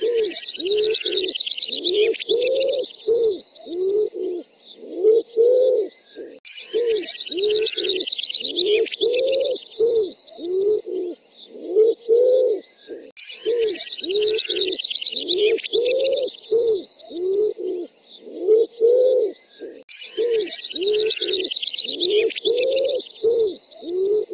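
Common wood pigeon song played in reverse: runs of low, hollow coos, with a fast, high chirping trill from another bird above them. The same passage of about six seconds repeats about four times.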